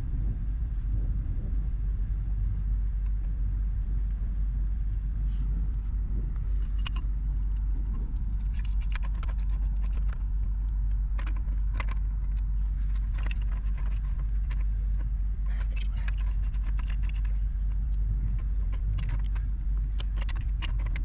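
Pipe wrenches working black steel gas pipe fittings: scattered sharp metal clicks and clinks, some with a brief ringing, from about six seconds in. Under them runs a steady low rumble.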